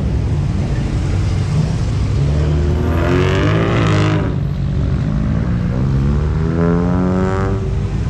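Car engines rumbling steadily, with two cars revving up, their engine pitch climbing, about three seconds in and again near the end.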